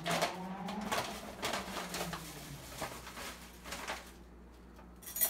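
Foil-lined stand-up pouch crinkling and rustling as a hand reaches in to scoop out spirulina powder, in irregular crackles that thin out after about three seconds.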